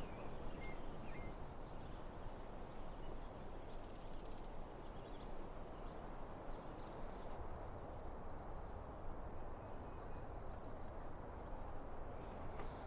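Quiet outdoor ambience: a steady low background hiss with a few faint, brief bird chirps scattered through it.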